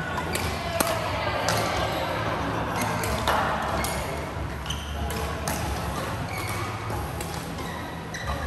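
Badminton rally in a doubles match: rackets strike the shuttlecock in sharp, irregular hits, sometimes under a second apart, with short high squeaks in between, over a steady low hum in the hall.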